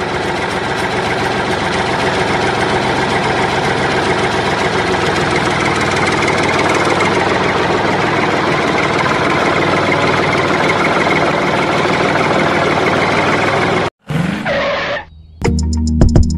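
A small motor running steadily and loudly as the homemade model tractor pulls its cultivator through sand. It cuts off abruptly about fourteen seconds in, and music starts near the end.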